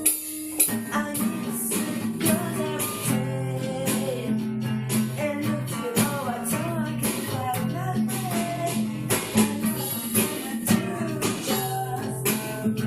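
Guitar-led music with a steady drum beat and a wavering melody line over sustained chords.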